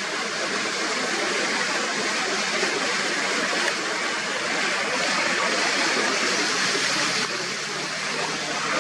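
Floodwater rushing steadily through a burst dam, a constant, dense sound of churning water.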